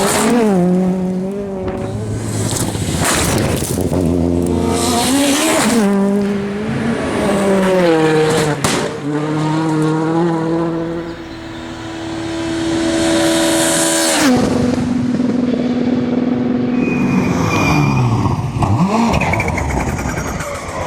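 Rally cars driven at full attack, engines revving hard with the pitch repeatedly climbing and dropping through gear changes.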